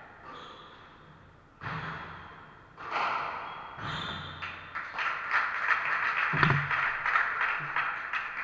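Squash rally in an echoing court: three sharp, ringing ball strikes about a second apart, the last as a player dives to the floor. Then a few seconds of dense rapid tapping with a thud partway through.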